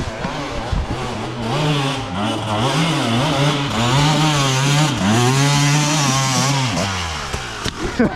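Single-cylinder four-stroke motocross bike engine, a KTM 450 SXF, being worked hard on the throttle on a climb. The revs rise and fall over and over, then drop away near the end as the throttle closes.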